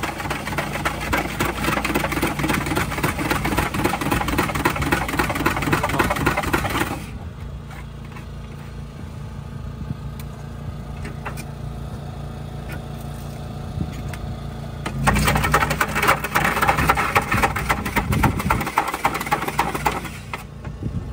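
Electric kakigori shaved-ice machine running as it shaves ice into a cup. It stops about a third of the way in and runs again for about five seconds near the end, over a steady low hum.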